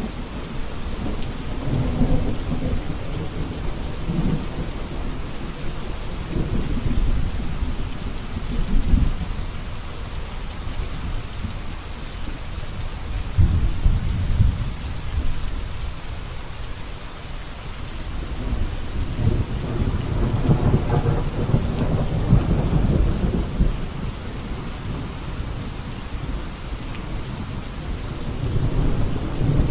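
Steady heavy rain hissing, with rolling thunder rumbling several times, the longest roll about twenty seconds in.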